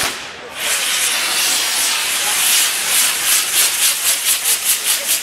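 Maltese ground fireworks (nar tal-art) open with a sharp crack, then the fire jets hiss loudly as they spray sparks. From about halfway through, the hiss pulses about four to five times a second and quickens, as a firework wheel spins.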